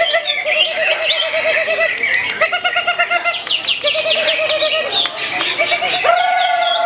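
Several caged songbirds singing at once in a bird-song contest, overlapping rapid trills of repeated notes, about ten a second, mixed with quick high chirps.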